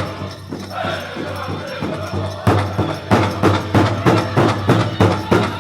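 Powwow drum group playing a grass dance song: a big drum struck in unison with singers' voices. The beat softens for the first couple of seconds, then about two and a half seconds in comes back strong and steady at two to three strikes a second.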